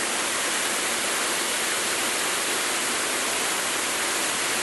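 Waterfall: a steady rush of falling water, with no change in level.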